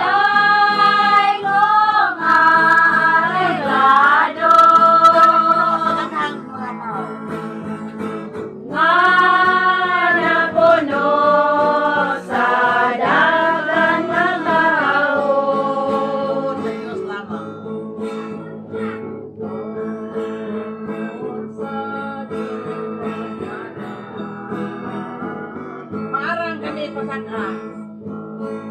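A group of women singing together to two strummed acoustic guitars. The voices are loud for the first half, dip briefly about six seconds in, and grow clearly quieter from about halfway while the guitars keep playing.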